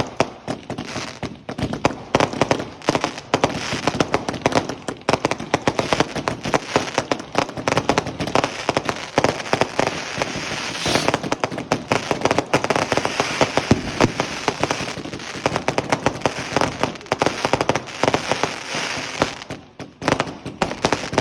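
Fireworks going off in a dense, continuous string of crackling pops with louder bangs scattered through it.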